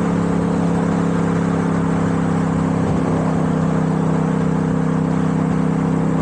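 A 2022 Yamaha MT-07's 689 cc parallel-twin engine running at a steady cruise, its note holding level, over a steady rush of wind.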